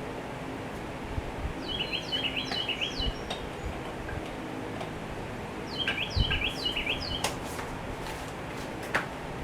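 A songbird singing two short bouts of quick chirps with falling notes, about two seconds in and again around six seconds, over a steady low hum and a few faint knocks.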